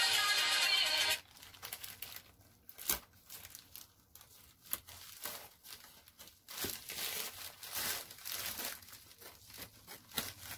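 Background music cuts off about a second in. After it come the crinkling and crackling of thin plastic delivery bags being handled, with irregular sharp crackles.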